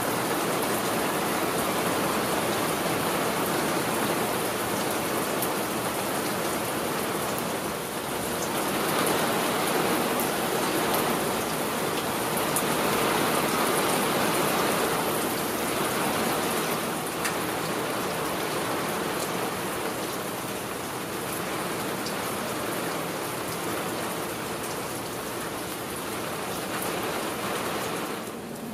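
Heavy rain falling steadily, a dense hiss of drops with scattered sharper drip ticks. It swells a little in the middle and eases slightly later on.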